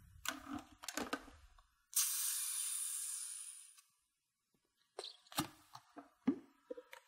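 Air hissing back into the sealed jug of a Vidia BL-001 vacuum blender as its vacuum is released: a high hiss that starts abruptly about two seconds in and fades away over a second and a half. A few light clicks and knocks of the lid arm and jug being handled follow.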